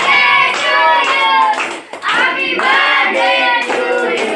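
A group of children singing a birthday song together, clapping along, with a short break in the singing about halfway through.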